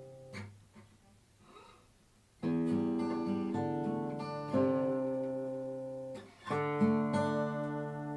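Acoustic guitar played alone. A ringing chord fades out, followed by a near-quiet gap with a few faint clicks. Then chords are strummed about every two seconds and each is left to ring.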